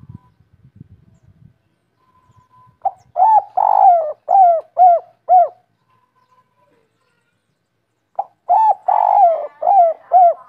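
Spotted dove cooing two phrases, each a short note, a longer rolling note and then clipped 'kuk' notes: the three-note-ending 'kuk 3' song. The second phrase begins about eight seconds in and is still going at the end.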